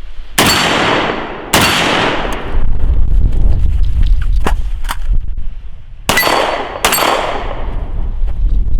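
Four gunshots, each ringing out with a long echo: two about a second apart near the start, then two more under a second apart about six seconds in. A loud low rumble of movement or wind on the microphone fills the gap between them.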